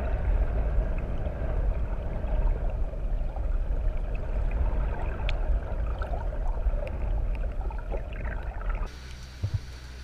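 Muffled underwater rush of water with a deep rumble from a moving boat, heard through a submerged camera. About nine seconds in it cuts to above-water sound, quieter: the boat's outboard motor running and its wake hissing, with a short thump.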